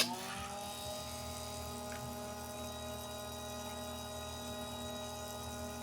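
Electric chain-sharpening machine's motor humming steadily, its grinding wheel spinning free just after it has come off a tooth.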